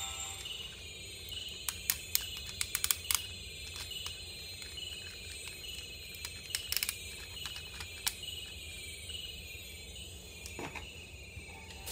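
Plastic and metal parts of a Voltes V combining robot toy clicking and clacking as they are handled and fitted together: a quick run of sharp clicks about two seconds in, and a few more later. Under them, a faint high chirp repeats about twice a second.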